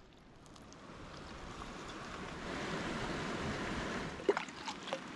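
Steady rushing outdoor noise that swells over the first few seconds, with a sharp clink about four seconds in and a few lighter ticks after it.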